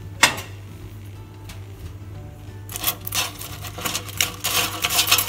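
A sharp knock from the air fryer basket, then, from about three seconds in, a dense crisp rattle and crackle of the air-fried potato chips being stirred and tossed in the basket.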